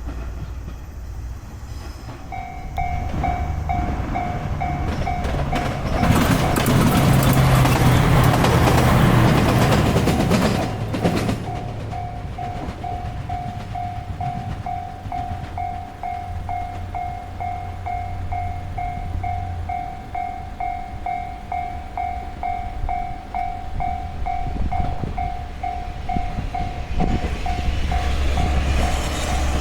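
Japanese railway level-crossing alarm starts about two seconds in, an evenly repeating electronic ding, and keeps ringing until near the end. A train passes over the crossing, loudest for several seconds before easing back to a low rumble.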